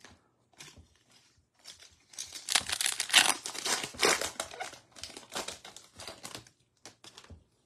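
A foil-wrapped Score football card pack being torn open and crinkled by hand: a few faint handling rustles, then a few seconds of loud, dense crackling of the foil wrapper, fading to a couple of light clicks near the end.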